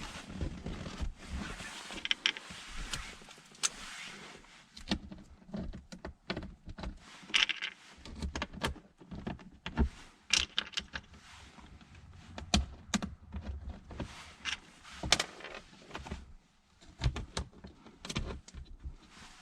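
Irregular clicks, knocks and rattles of tools and metal parts being handled while the truck's shifter assembly is put back together, with a few short noisy bursts.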